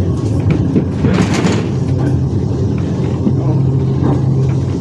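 Glasgow tram No. 22 running along the line: a steady low rumble of wheels on rail with a motor hum that strengthens near the end, and a brief hiss about a second in.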